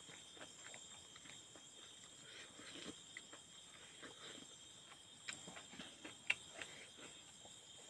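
Faint eating sounds: a man chewing and smacking his lips while eating rice by hand from a steel plate, with many small clicks and one sharper click about six seconds in.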